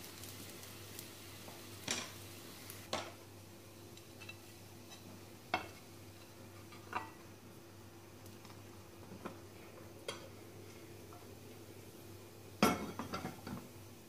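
Separate knocks of a wooden spatula and a ceramic plate against a granite-coated frying pan, about five, a second or more apart. Near the end comes a louder clatter of several quick knocks as the pan is turned over onto the plate to flip a fried shredded-pastry round.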